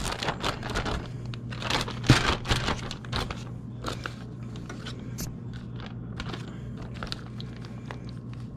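Plastic zipper bag of breading mix crinkling and rustling as it is pulled open and a hand works inside it, busiest in the first three seconds and lighter after. A steady low hum runs underneath.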